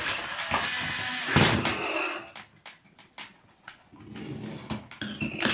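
A MiPosaur toy robot dinosaur knocked over on the floor: a clattering thud about a second and a half in, the loudest sound, then a few scattered light clicks and scrapes.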